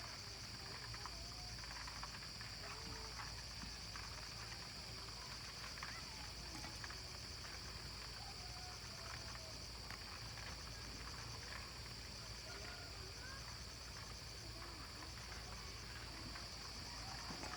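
Faint outdoor ambience: insects keep up a steady high-pitched drone throughout, with faint distant voices or calls underneath.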